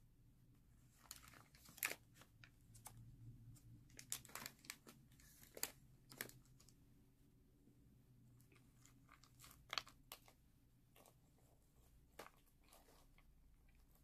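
A person chewing crunchy snack food close to the microphone: irregular crunches and bites, a few of them much sharper than the rest, with softer chewing between.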